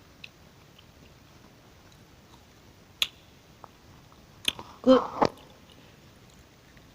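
Close-miked mouth sounds of eating: a few sharp, wet clicks and smacks of the lips and tongue spaced apart over several seconds, then a quick cluster of them near the end. Towards the end a short spoken "Good" comes in among them.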